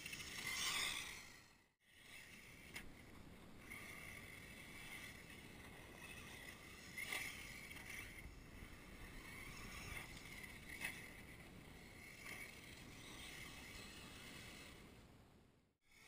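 Faint, thin whine of a radio-controlled car's motor running at a distance, swelling and easing as it speeds up and slows down, with a brief drop-out about two seconds in.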